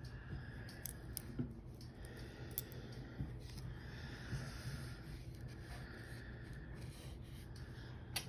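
Faint, scattered clicks and taps of stone beads and small findings being handled at a beading table, over a steady low hum.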